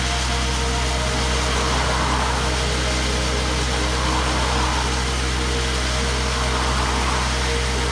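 Diesel engine of a trailer-mounted road-coring rig running steadily while its hydraulic motor turns a 300 mm core barrel cutting into the road surface. A hiss of cutting swells and fades every two to three seconds over the steady engine drone.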